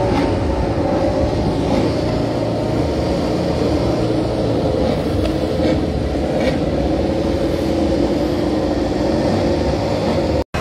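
Steady drone of running engines, holding an even pitch with no revving.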